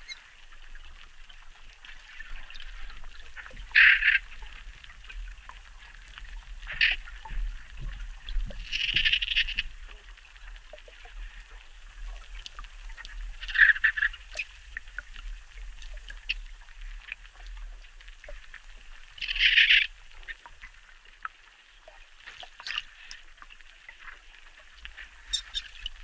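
Amazon river dolphins calling: short, separate calls every few seconds, about five in all, with faint scattered clicks between them.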